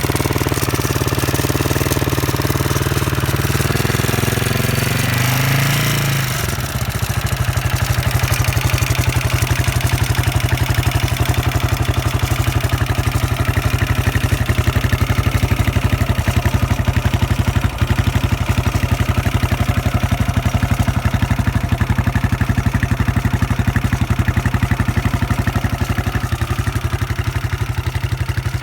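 Husqvarna SM 610 single-cylinder four-stroke engine with a Keihin FCR 41 carburettor running on raised revs, rising briefly about five to six seconds in, then dropping back to a steady idle with even firing pulses. The owner finds the engine noise strange.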